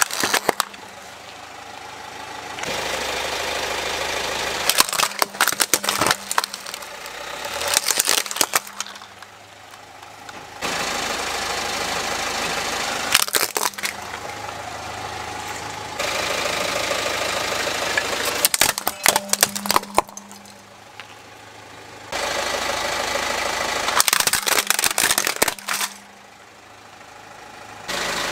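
Plastic toys cracking and snapping under a slowly rolling car tyre, in about six separate crushes. Each is a quick cluster of sharp cracks over the car's steady engine noise.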